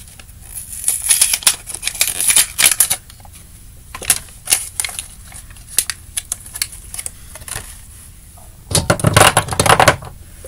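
Small plastic containers and bottles of slime supplies clicking and clattering as they are handled and set down, in quick runs with pauses, and a louder rustling clatter near the end.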